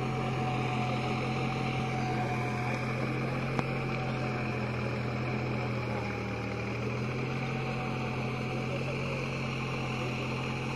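Diesel engine of a Deutz-Fahr Agrolux 50 4WD tractor running steadily as the tractor works through deep paddy-field mud, with a slight dip in the engine note about six seconds in.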